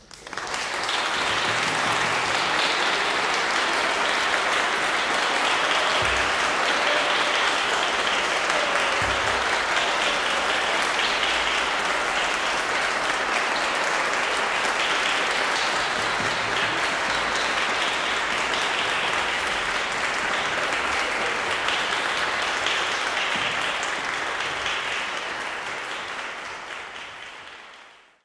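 Audience applauding, breaking out all at once and going on steadily before fading out near the end.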